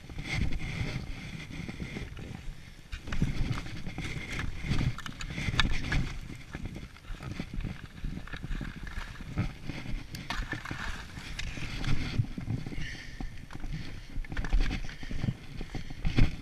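Skis sliding and hissing over snow on a town street, with irregular low rumbles on the microphone throughout.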